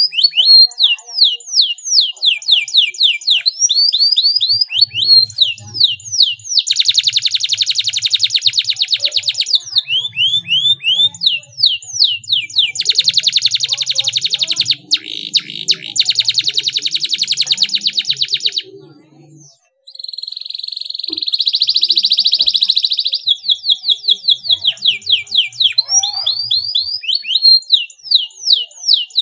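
Domestic canary singing: runs of quick, repeated falling notes alternating with long, fast, tightly packed trills (rolls). A short break about two-thirds through is followed by a buzzier trill, then more repeated notes.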